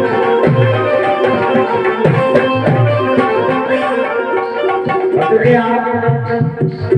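Instrumental passage of a live bhajan: a harmonium sustains notes over a hand drum keeping a steady rhythm, its deep strokes dipping in pitch. A singer's voice comes in near the end.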